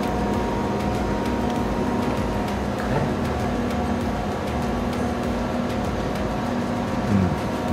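Steady mechanical hum with a few faint constant tones, from equipment running in the room.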